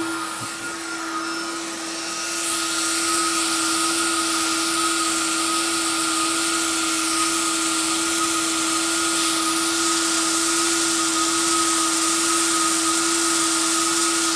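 Hot-air plastic welder running, a steady blower hiss with a constant whine, heating the kayak hull surface and the plastic welding rod. The airflow hiss gets louder about two seconds in and then holds steady.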